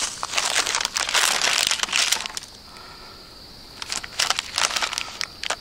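Plastic covering on a posted paper sign crinkling and crackling as it is handled by hand: a dense bout lasting about two seconds, then a quieter pause, then shorter crinkles near the end.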